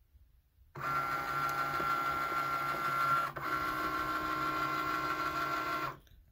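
Cricut Maker's motors running, sliding the taped canvas on its mat in under the rollers and back out: a steady mechanical whine that starts about a second in, breaks off briefly midway and stops near the end.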